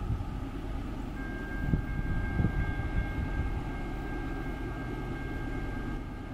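Union Pacific GE AC4400CW diesel-electric locomotives of a coal train approaching, a steady low rumble. About a second in, a steady high two-note whine joins and holds.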